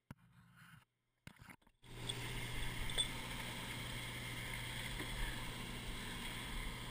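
Steady drone of a sportfishing boat's engine with a rush of wind and water. It starts about two seconds in after a few faint clicks and cuts off abruptly near the end.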